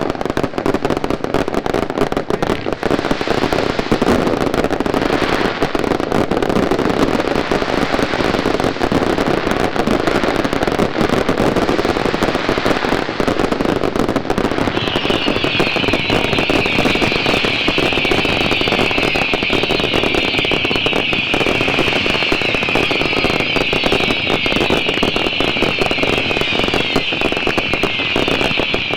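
Daylight fireworks going off in a dense, continuous barrage of rapid firecracker crackling and bangs. About halfway through, a massed shrill whistling joins in and keeps going.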